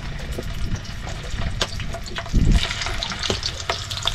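Longganisa sausages sizzling and sputtering in hot fat and liquid in a grill pan, with scattered crackling pops that grow into a steadier sizzle near the end. A loud low thump about two and a half seconds in.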